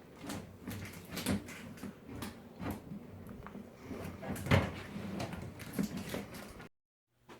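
Irregular bumps, scrapes and rustles of a large water monitor stirring and being handled in its shipping container, cutting off suddenly near the end.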